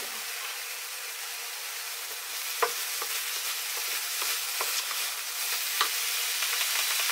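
Onion, garlic and ginger paste sizzling in a frying pan as a wooden spatula stirs and scrapes it, with a few sharp taps of the spatula against the pan. The sizzle grows slightly louder as the paste fries down and begins to stick to the pan bottom, the sign that it is ready.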